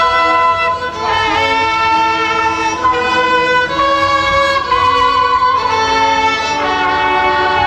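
Background music: a slow melody of long held notes, each changing to the next every half-second to a second.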